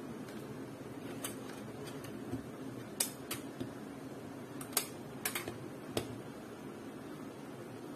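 A few sharp, scattered clicks and taps of small hard objects being handled, most of them between about one and six seconds in, over a steady low background hum.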